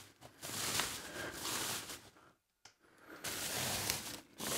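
Plastic protective wrapping rustling as it is pulled off a flat screen panel, in about three stretches with short pauses between them.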